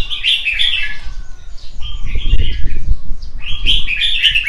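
Several caged red-whiskered bulbuls chirping and calling in three bursts of quick notes, with a low rumble about two to three seconds in.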